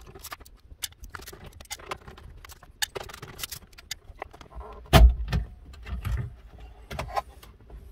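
Metal clicks and knocks as a socket wrench works a bracket bolt and the metal-cased CD player unit is pulled out of the dashboard, with a loud thump about five seconds in.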